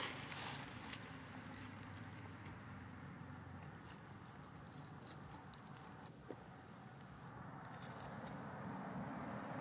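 Dry leaves crackling with scattered light clicks as a baby macaque grabs and handles them, one sharper click about six seconds in, over a faint steady high whine.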